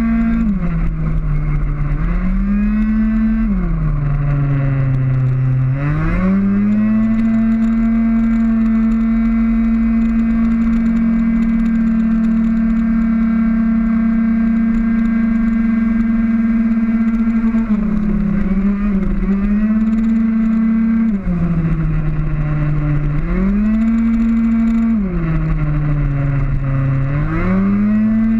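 Tuned two-stroke racing scooter engine at full throttle, heard from on board, holding a steady high pitch down a long straight in the middle and dropping in pitch about five times as it slows for corners, then climbing back up each time.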